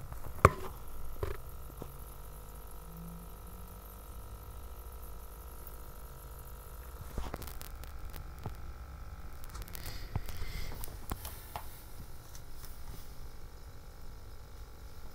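Quiet room tone with a steady low hum, broken by a few sharp clicks and taps, the loudest about half a second in.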